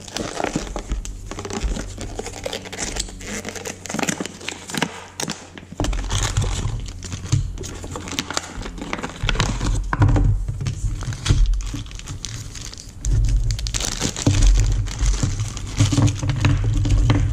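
Clear plastic zip bags and paper packaging of a windshield repair kit crinkling and rustling as they are handled and unpacked, with a tearing sound in places. Low, uneven bumps and rumble of handling come and go through the second half.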